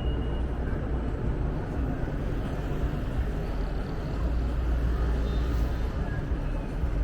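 City street ambience: a steady low rumble of traffic and noise, growing a little louder about four seconds in.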